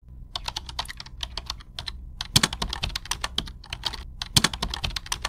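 Computer keyboard typing: an irregular run of quick key clicks, with two louder strokes about two and a half and four and a half seconds in, over a low steady hum.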